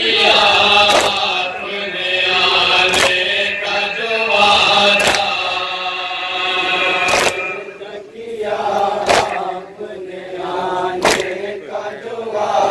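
A group of men's voices chanting a nauha, a Shia lament, in long held lines, led by one voice. A sharp slap comes about every two seconds: hands striking chests in matam, keeping the beat.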